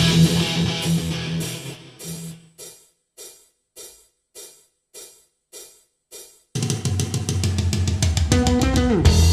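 Rock music played back through Teufel M200 loudspeakers: a full band with drums and guitar drops to a bare drum figure of single hits about two a second, then the whole band comes back in about two-thirds of the way through.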